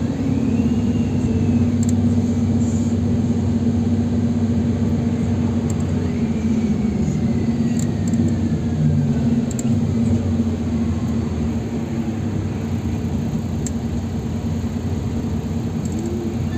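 Inside a NefAZ 5299 city bus under way: its Cummins ISBe six-cylinder diesel and drivetrain running with a steady low drone over road noise. A faint whine rises about six seconds in and slowly falls away.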